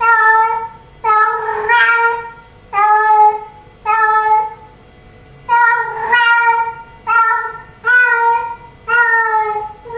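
Female cat in heat calling over and over, a run of drawn-out meows about one a second with a short pause midway. It is the mating call a queen makes to draw a tom.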